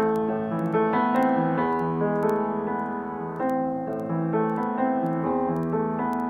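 Piano music as a soundtrack, a gentle run of single notes and chords, each struck and left to ring into the next.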